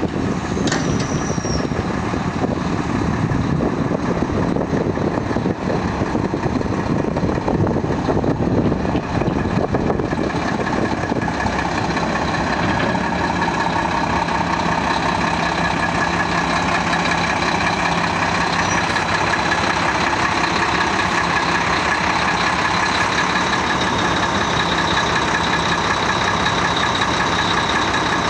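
2009 Mack GU713 Granite plow truck's diesel engine running as the truck drives, joined about twelve seconds in by a steady high whine that holds while the dump body goes up.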